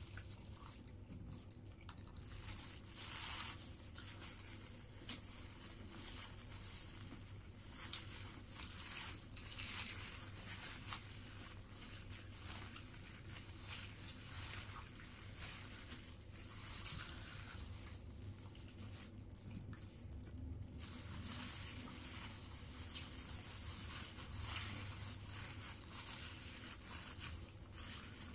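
Eating sounds close to the microphone: irregular chewing and crunching of fried chicken and rice eaten by hand, with crinkling from a plastic food glove and paper wrapping.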